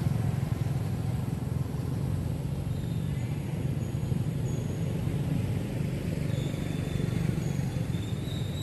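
Steady low rumble of outdoor background noise, with faint high-pitched tones near the end.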